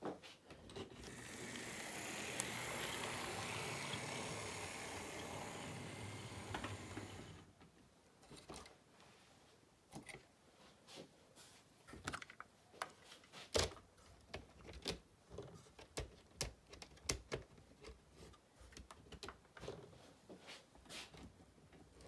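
HO scale model train running on the layout: a steady rolling rumble of motor and wheels for about the first seven seconds, then a long run of irregular clicks and ticks from the wheels on the track.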